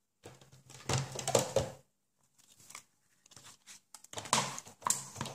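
Die-cutting plates, a thin metal die and a freshly cut cardstock piece being taken apart and handled: irregular rustling and handling noise, in a burst about a second in and again near the end.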